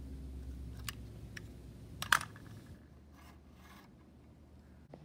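Faint handling noises: a few light clicks and a brief scrape about two seconds in, over a low hum that fades after the scrape.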